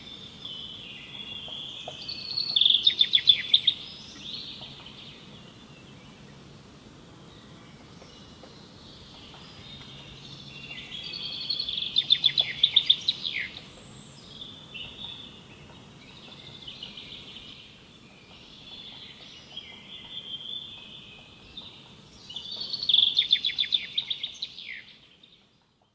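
Songbird singing in a forest: three loud song phrases about ten seconds apart, each with a rapid trill, with softer chirps and warbles between them.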